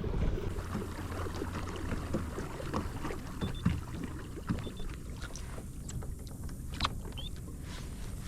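Kayak moving on a lake: water sloshing along the hull, with scattered small knocks and clicks.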